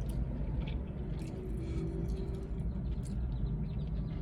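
Steady low rumble of an idling car heard from inside the cabin, with a few soft clicks of someone chewing food.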